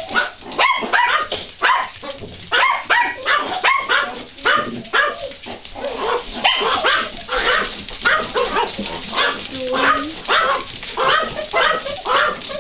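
Small dogs barking and yipping excitedly at feeding time, a rapid run of sharp barks several a second with no break.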